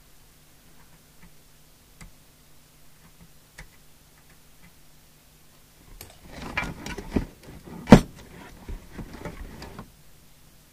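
Trimming tool scraping and prising at a broken tuning core in a CB radio coil: a run of scraping and clicking from about six seconds in, with one sharp crack near eight seconds as the broken piece of core is broken away.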